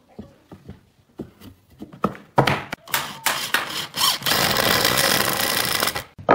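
Knocks and clicks of pine boards being handled and set together, then a cordless drill driving a screw into the wood for about two seconds, stopping shortly before the end, followed by a sharp wooden knock.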